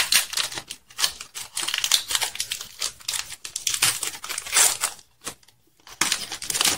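Foil wrapper of a Pokémon trading-card booster pack crinkling and tearing as it is opened by hand. Dense crackling for about five seconds, a brief lull, then a short last rustle near the end.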